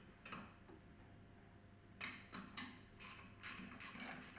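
Faint metallic clicks of a hand tool fastening the bolts of a centrifugal pump's spacer coupling: a single click near the start, then an uneven run of about two to three clicks a second from about two seconds in.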